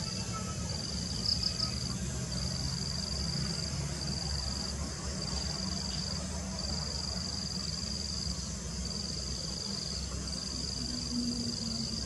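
Insects trilling steadily at a high pitch, in long stretches broken by short pauses, over a low steady rumble.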